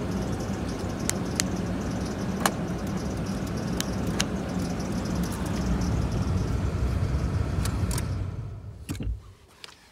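2005 Nissan Xterra's 4.0 L V6 engine idling steadily, with a few sharp clicks over it, then dying away about nine seconds in.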